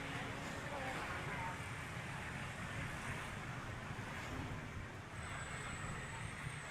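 Steady outdoor city background: a low, even rumble of traffic.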